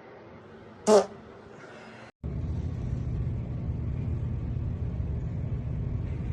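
A man's brief, loud fart about a second in. After a cut, a steady low rumble runs on through the rest.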